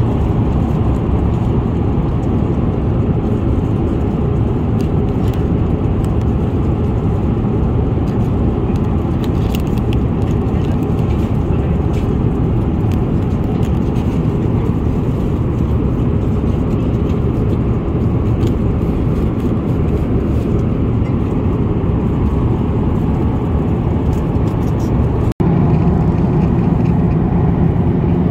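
Steady cabin noise of an Airbus A350-900 airliner in cruise: the low roar of engines and rushing air. A few faint crinkles and clicks of food packaging being handled come partway through. Near the end the sound drops out for an instant and returns a little louder and deeper.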